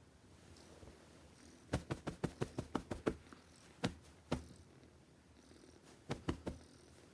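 A cat's low, steady rumble as it breathes in its sleep, the sound the title calls loud snoring. A quick run of sharp clicks comes about two seconds in, with a few more later on.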